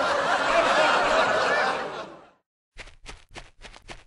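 A dense babble of high, cartoonish snickering and chattering voices fades out about two seconds in. After a brief silence comes a run of quick, light plastic clicks and taps as a Lego minifigure rummages in a brick-built crate.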